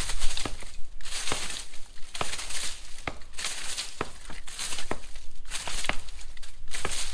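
Dry leaf litter being raked aside by hand: repeated crunching, rustling swishes about once a second, with small twigs snapping and clicking.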